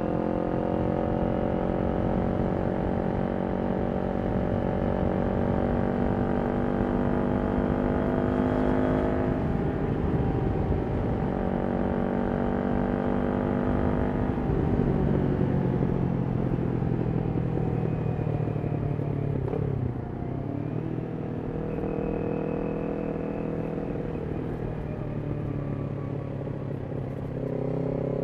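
Kawasaki Ninja 400's parallel-twin engine running through a Yoshimura exhaust on the move at steady revs. The engine note steps lower about ten and fifteen seconds in, dips briefly near twenty seconds, and rises again near the end.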